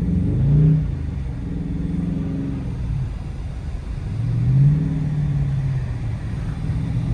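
Dodge Charger R/T's 5.7-litre Hemi V8 running under throttle, rising in revs twice, about half a second and four and a half seconds in, as the wheels spin for grip in deep snow.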